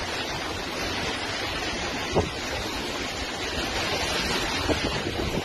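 Storm wind and heavy rain rushing steadily, a violent storm that may be a tornado. A single sharp bang sounds about two seconds in.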